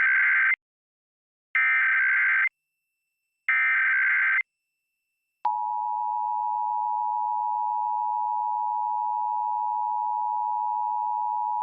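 Emergency Alert System SAME header: the end of one burst and two more bursts of warbling digital data tones, each about a second long with short silences between. About five and a half seconds in they are followed by the steady two-tone EAS attention signal (853 and 960 Hz together), which signals that a nationwide alert, here a test, is being broadcast.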